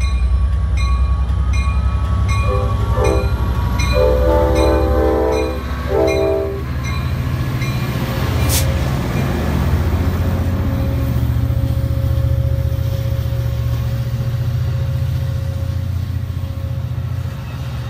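Amtrak California F59PHI diesel locomotive passing close by with its passenger train, engine rumbling heavily. It sounds its horn in a few blasts over about four seconds, the longest in the middle, while a bell ticks about twice a second. Then the cars roll past with steady rail noise and a single sharp clank.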